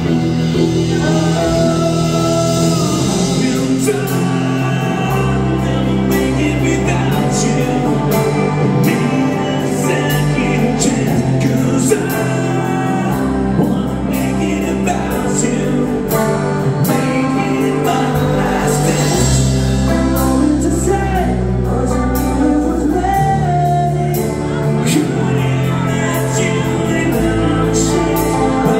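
Live rock band playing: a male singer over electric guitar, electric bass and a drum kit, with the drums hitting in a steady beat.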